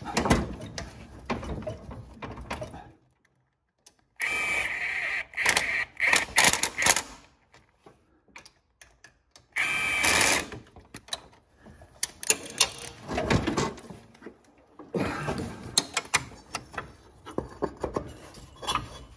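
Cordless drill spinning a socket on a long extension to drive the engine mounting bolts up through the mower frame, in a run of about three seconds and then a shorter one of about a second. Clicks and clatter of metal parts being handled come in between and afterwards.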